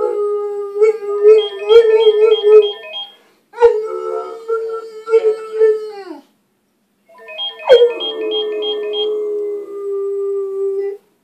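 A bulldog howling in three long, wavering bouts with short breaks between them.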